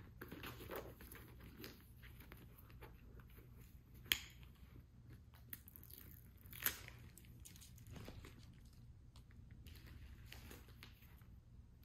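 A new black handbag being handled: faint rustling and rubbing of the bag, with two sharp clicks about four and six and a half seconds in.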